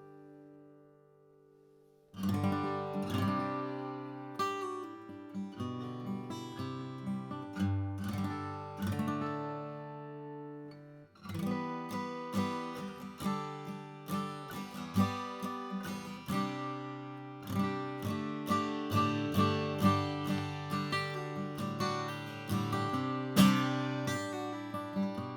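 Collings C100 acoustic guitar, with a Sitka spruce top, mahogany back and sides and medium phosphor bronze strings, being played in single notes and strummed chords. A chord fades out at the start and playing resumes about two seconds in, with a short let-ring pause about ten seconds in.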